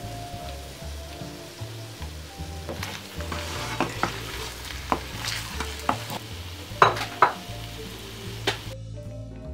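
Pasta sizzling in a hot nonstick frying pan while a wooden spoon stirs it, with several sharp knocks and scrapes of the spoon against the pan from about four seconds in. The sizzle cuts off suddenly shortly before the end.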